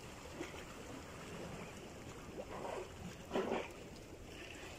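Sea water lapping and swishing against the boat, with a short splash about two and a half seconds in and a louder one about three and a half seconds in, as fish stir the surface.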